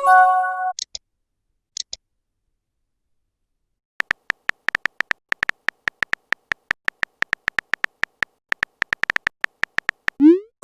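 Smartphone messenger sound effects: a short message chime at the start and two small pops, then after a pause a long run of rapid keyboard tap clicks, ending with a short rising swoosh as a message is sent.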